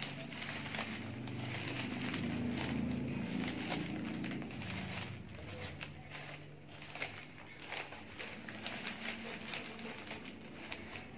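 Bouquet wrapping paper and white net mesh crinkling and rustling in irregular crackles as hands fold and gather them.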